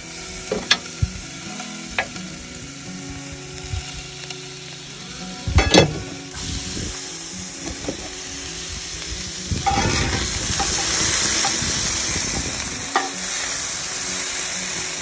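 Diced chicken and vegetables sizzling on a Blackstone steel flat-top griddle, with clinks and scrapes of a metal spatula on the plate in the first half. The sizzle swells and grows louder about ten seconds in.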